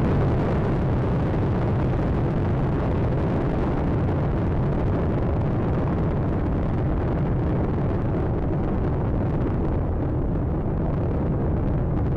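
Space Shuttle Atlantis's solid rocket boosters and main engines during ascent: a loud, steady low rumble of rocket exhaust.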